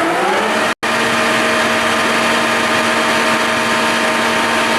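Cincinnati Hydrashift engine lathe running under power, its spindle drive and gearing whining. The pitch rises as the spindle comes up to its newly selected speed, then settles into a steady hum with a constant tone. The sound cuts out for an instant a little under a second in.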